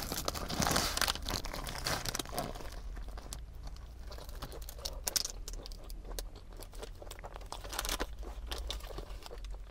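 Biting into and chewing a deep-fried Taiwanese nutritional sandwich, its crust fried very crisp, with crunching on the bites. The paper wrapper crinkles as it is handled. The crunching is densest in the first couple of seconds.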